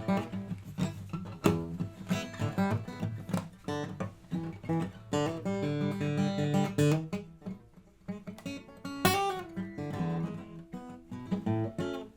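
Solo acoustic guitar playing an instrumental piece: picked single notes mixed with strummed chords, with a brief lull about eight seconds in before a loud chord.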